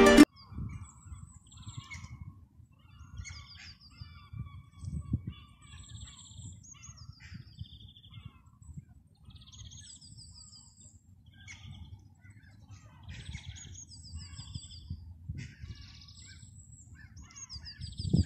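Small birds chirping and singing, with short high notes and quick repeated trills again and again, over a low uneven rumble of outdoor noise.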